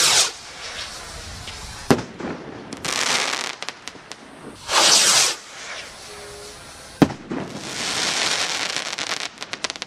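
A 35/45-calibre VIVA Dominator firework battery firing aerial shots: two sharp bangs, about two seconds and seven seconds in, with loud stretches of hissing crackle from the bursting stars in between. It ends in a quick string of separate crackles.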